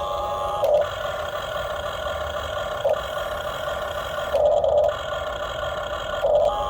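Remote-control model excavator's motor whirring steadily, swelling louder briefly about three times.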